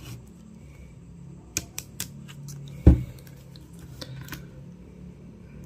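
Hobby-knife blade scraping and picking at thick plastic shrink-wrap on a cardboard box, giving scattered sharp clicks and crinkles, with one loud dull thump about three seconds in.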